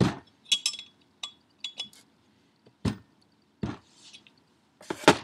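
A wrench clinking against the nut of a turbocharger's V-band clamp as it is tightened: irregular sharp metal clicks, roughly one a second, a few with a brief ring.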